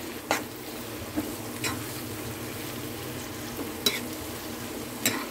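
Sliced onions and ginger-garlic paste sizzling in hot oil in a pan, stirred with a spoon that clinks against the pan four times.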